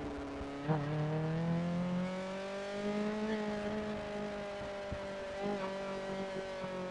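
Kawasaki ZX-25R's 250 cc inline-four engine running at steady mid revs, its pitch rising slightly and easing back, with a couple of brief clicks.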